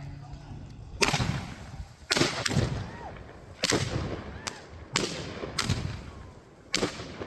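Fireworks exploding: about eight sharp bangs at irregular intervals, some loud and some fainter, each trailing off in a low rumble.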